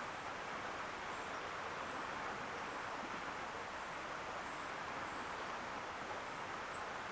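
Steady rush of flowing river water, with a few faint, short high chirps scattered through it.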